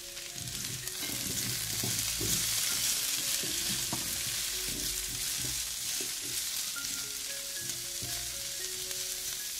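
Sliced onions and carrot rounds sizzling in a stainless-steel frying pan while spatulas stir and scrape them around the pan. The sizzle grows louder about a second in, with irregular scraping strokes throughout.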